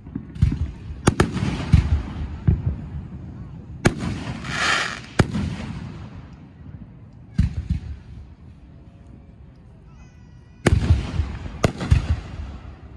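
Aerial fireworks shells bursting overhead: a series of sharp bangs with echoing rumbles, a brief hissing burst about four seconds in, and a lull of a couple of seconds before another cluster of bangs near the end.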